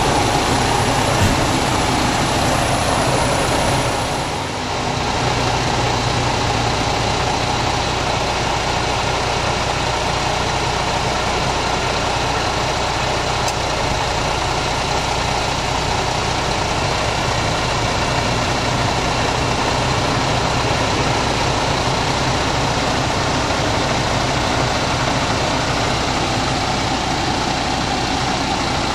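MAN TGS truck's diesel engine idling steadily with its air-conditioning compressor engaged, with a brief dip in loudness about four seconds in.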